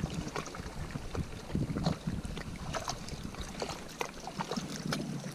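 Small scattered clicks and handling noises as a crankbait with treble hooks is tied onto fishing line, over a steady low rumble of wind and water around a kayak.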